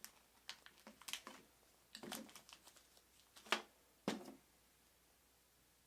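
A screw being worked into a PVC pipe fitting by hand: scattered small plastic clicks and knocks, the loudest about three and a half seconds in, then quiet for the last second and a half.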